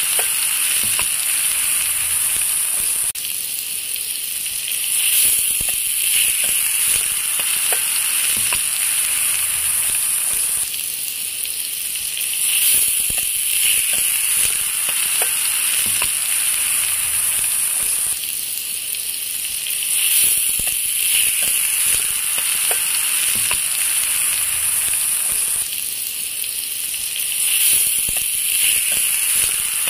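Diced pork and onions sizzling as they fry in a wok. A metal ladle scrapes and clicks against the pan as they are stirred.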